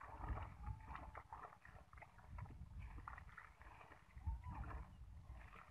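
Legs and hands moving through thick, shallow muddy water, with irregular sloshing and squelching of mud.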